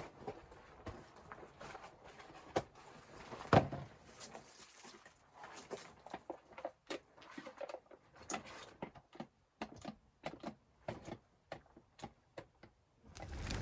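A run of irregular knocks and clicks, with one louder knock about three and a half seconds in. A steady rushing noise comes in right at the end.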